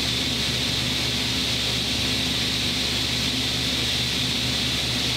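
Steady mechanical hum and hiss of workshop machinery running, with a constant low hum under an even hiss.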